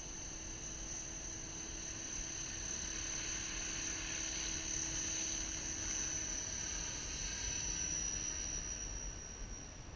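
Align T-Rex 600 ESP electric RC helicopter flying past: a steady high-pitched motor whine with rotor noise, growing louder as it comes close through the middle and falling away near the end.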